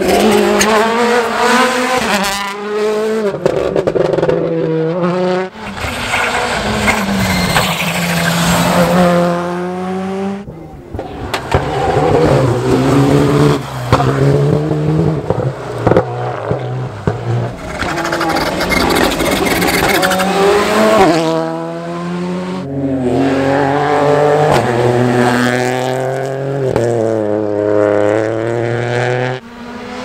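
Rally cars, among them a Hyundai i20 WRC, accelerating hard out of hairpin bends. Each engine's pitch climbs and breaks again and again as it upshifts, and one car after another passes.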